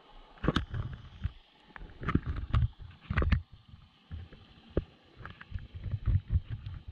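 Irregular knocks and clicks over low rumbling water noise, heard through a GoPro's waterproof housing underwater.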